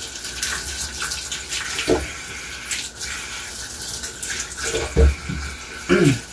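Kitchen tap running steadily into a stainless steel sink while strawberries are rinsed under it, with a dull knock about five seconds in and a short sound falling in pitch just after.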